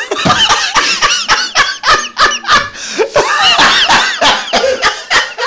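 People laughing hard and loudly, in quick high-pitched bursts of breathy laughter, right after a man has been whacked with a rubber dog toy.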